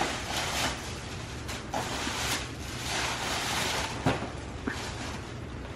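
Tissue paper rustling and crinkling in repeated swishes as it is pulled out of a paper gift bag, with a sharp knock about four seconds in.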